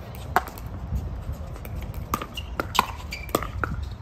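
Pickleball paddles striking the plastic ball during a doubles rally: about five sharp pocks, irregularly spaced, over a steady low rumble.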